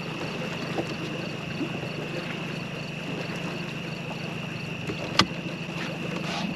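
Boat's outboard motor running at idle, a steady low drone, under a steady high-pitched chorus of night insects. A single sharp knock comes about five seconds in.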